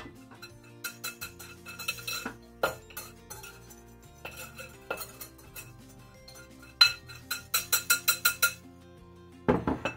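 A kitchen utensil clinking and tapping against a glass mixing bowl as dry flour mixture is scraped and knocked out into a stainless steel mixer bowl. Scattered taps at first, then a quick run of about eight taps, and a louder knock near the end.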